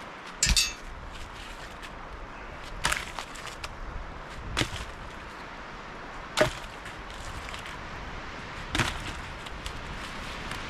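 Five sharp knocks at irregular spacing, roughly two seconds apart, over steady outdoor background noise.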